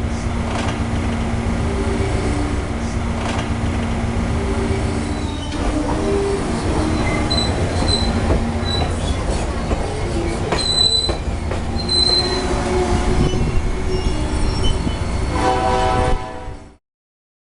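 Added sound effect of a full-size train running: a steady low rumble with short, high wheel squeals through the middle. A horn-like chord sounds near the end, then the sound cuts off abruptly.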